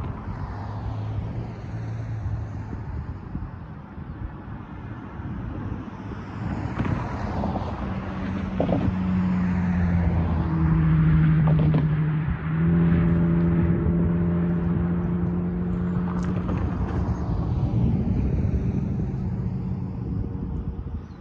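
Road traffic: cars passing, their engine and tyre noise swelling and fading several times. From about eight seconds in, a steady low drone of several tones joins it, dips briefly, then runs on.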